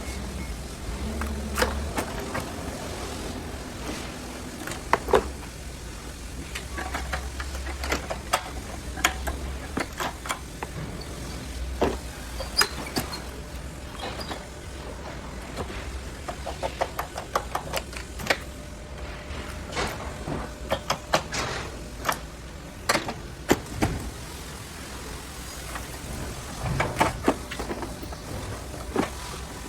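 Irregular clicks, knocks and clatters of hand tools and parts being handled while a car is taken apart, over a low steady hum.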